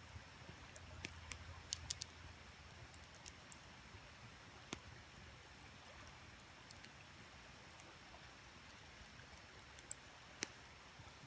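Wood campfire crackling faintly, with scattered sharp pops, a cluster about a second in and two louder ones near the end, over the steady rush of a creek.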